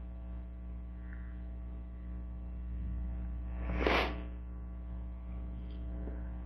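Steady electrical mains hum from the sound system, with one short breathy swish about four seconds in.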